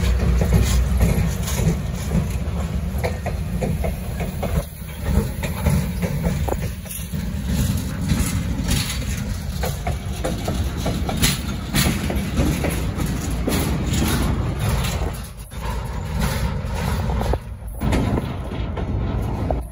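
CSX diesel-electric freight locomotives passing close by, their engines running with a low rumble over the clicking of steel wheels on the rails. Toward the end the locomotives give way to double-stack intermodal container cars rolling past.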